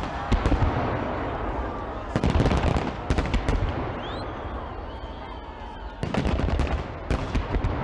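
Fireworks salute: clusters of rapid bangs and crackling bursts, about four volleys, with a rumble between them.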